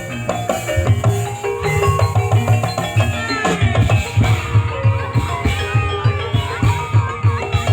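Banyumasan gamelan music for an ebeg hobby-horse dance: struck metal keys hold pitched notes over a busy, steady beat of deep hand-drum strokes, with a wavering melodic line above.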